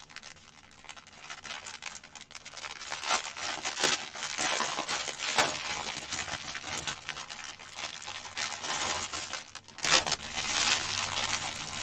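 Clear plastic wrapping crinkling and crackling as it is pulled off a pack of diamond painting drills, with louder crinkles now and then and the loudest near the end.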